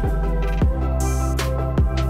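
Electronic background music with a heavy beat: deep kick drums that drop quickly in pitch over a steady bass, with a hissing swell about halfway through.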